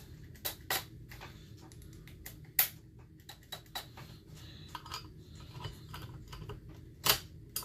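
Irregular clicks and taps of chainsaw parts and hand tools being handled during assembly. The loudest clicks come about two and a half seconds in and again near the end.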